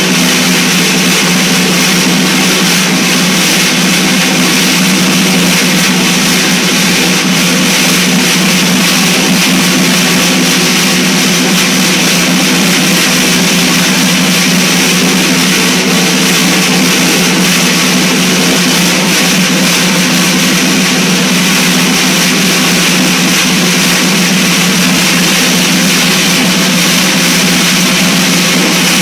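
Snare drum played with sticks in a fast, unbroken roll, so dense that no single strokes stand out. It makes a loud, steady wash of snare rattle over a low, humming drone from the head.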